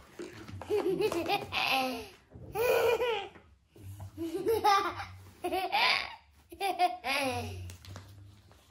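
A young girl laughing in several bursts with short pauses between them.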